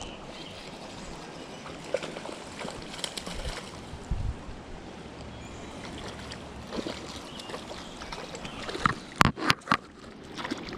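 Steady rushing of river water, with a few sharp knocks close together near the end.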